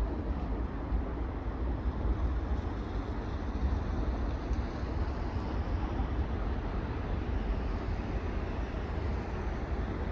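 Steady low rumble with a hiss above it, even throughout with no distinct splashes or calls standing out.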